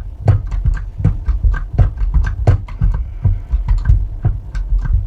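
A cable lug crimping tool being worked in quick repeated strokes, about four a second, each a sharp click with a low thud, as the lug is squeezed onto a heavy cable.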